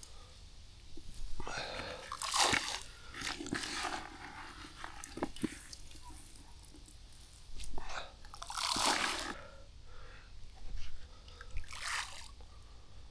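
Handfuls of soaked peas and fermented corn groundbait being scooped and scattered to bait a fishing spot. Four or so separate bursts of wet, grainy crunching and rustling, the longest about 8 to 9 seconds in.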